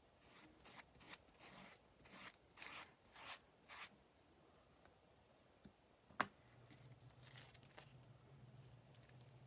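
Faint scraping of a squeegee card wiping chalk paste across a silkscreen transfer, in short quick strokes about two a second. About six seconds in there is one sharp click, the loudest sound, and then a low steady hum begins.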